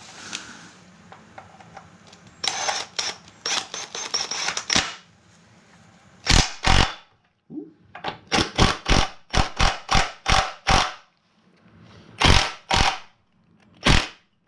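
A series of sharp snaps and knocks from hand-tool work on metal: a rattling stretch first, then a quick run of about eight strikes in the middle and a few single ones near the end.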